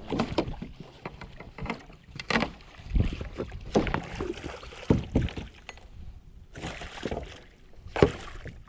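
Northern pike thrashing in a landing net against a kayak: a run of irregular knocks, slaps and splashes, the loudest about eight seconds in.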